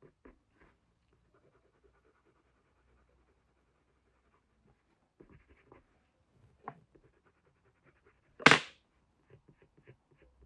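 Quick, short pencil strokes on paper, flicking in fur, about three or four a second, with a pause of a few seconds early on. About eight and a half seconds in, a single short, loud puff of air.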